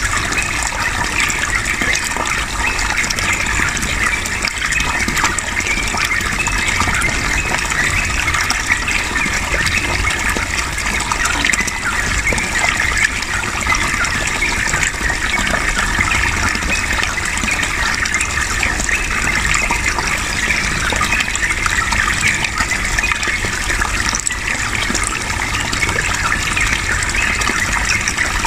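Flowing water rushing steadily, as in a stream or small cascade.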